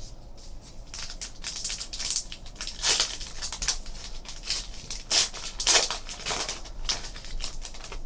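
Trading card pack wrapper being torn open and crinkled by hand as the cards are slid out: a run of short, irregular rustles and crackles, loudest about three seconds in and again around five to six seconds in.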